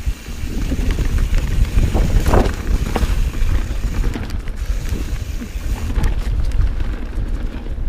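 Wind buffeting the microphone of a camera mounted on a Santa Cruz Hightower mountain bike moving fast down a dirt singletrack, over a steady low rumble of tyres on the trail, with frequent clicks and knocks of the bike rattling over roots and bumps.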